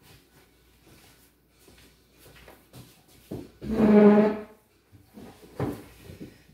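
A chair dragged across the floor: a pitched scrape of about a second, then a sharp knock a second and a half later as it settles.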